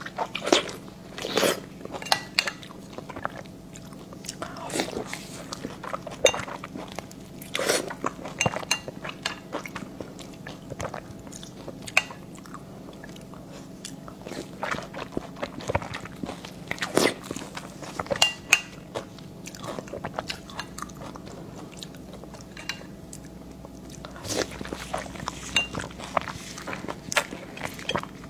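Close-miked eating: irregular chewing and biting, with many sharp wet clicks and smacks of the mouth.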